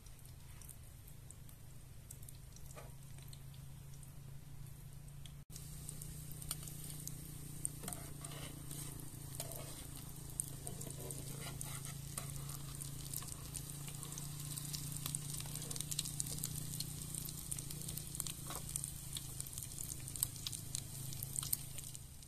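Kotlet, potato and ground-meat patties, frying in hot oil in a pan: a steady sizzle with scattered crackling pops. It gets louder after a sudden brief break about five seconds in.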